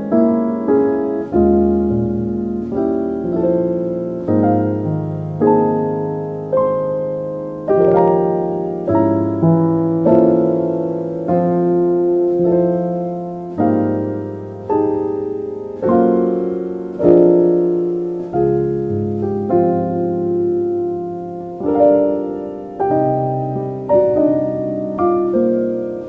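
Soft, slow solo piano music: single notes and chords struck about once a second and left to ring and fade.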